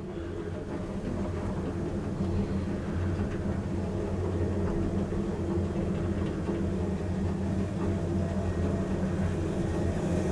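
ThyssenKrupp machine-room-less traction lift travelling down with passengers, a steady low hum of the car and drive in motion.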